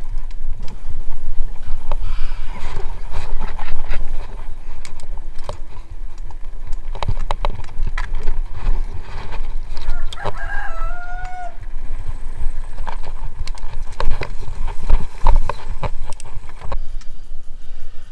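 Mountain bike clattering over a brick-paved path, with many short knocks and rattles over a steady low wind rumble on the microphone. A rooster crows once about ten seconds in.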